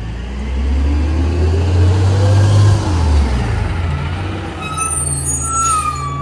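A CNG rear-loader garbage truck's engine running heavy and low, with a rising whine over the first few seconds, easing off about three seconds in. From about five seconds its brakes squeal as it comes to a stop, with a short hiss of air near the end.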